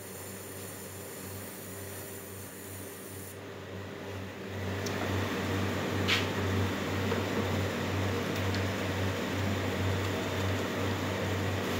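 A milk analyzer running: about four and a half seconds in, a steady mechanical whir with a pulsing low hum starts up, and there is a single click about a second and a half later.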